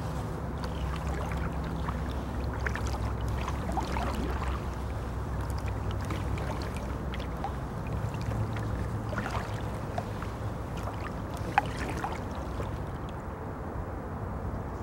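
Wooden canoe paddled on calm water: soft paddle dips and water drips against a steady low hum, with a single sharp knock about twelve seconds in.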